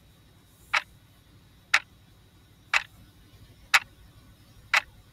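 Clock ticking sound effect: five sharp ticks, one a second, evenly spaced.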